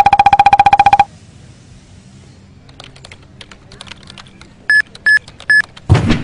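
Cartoon sound effects: about a second of rapid buzzing beeps, then light computer-keyboard typing clicks. Near the end come three short high beeps, a low-battery warning, and then a heavy thump as the worker slumps onto the desk.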